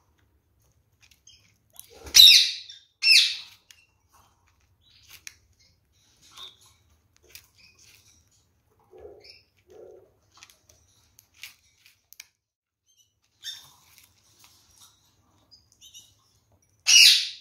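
Red-fronted kakariki pecking and husking seeds in a gravel-strewn tray, a scatter of small sharp clicks. Two loud short bird calls come about two and three seconds in, and another near the end.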